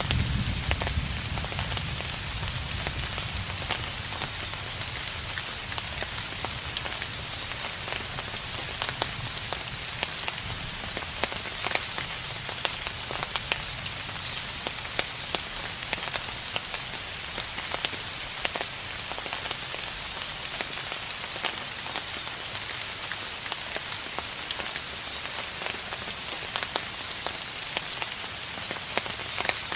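Steady rain, with many individual drops splashing close by over a constant hiss. A low, distant thunder rumble dies away over the first few seconds.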